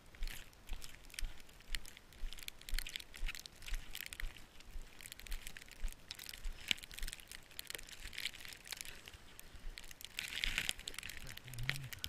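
Footsteps crunching through deep snow, about two steps a second at a steady walking pace.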